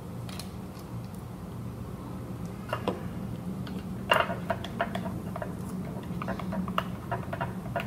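A spoon clicking and knocking against a glass bowl as it stirs thick slime: an irregular run of short clicks, several a second, starting about three seconds in, over a steady low hum.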